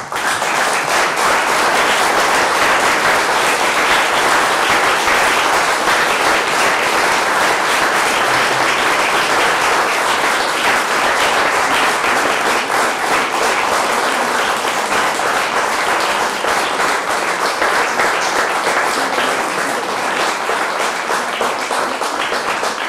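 A roomful of seated people applauding steadily. The clapping starts abruptly and eases slightly near the end.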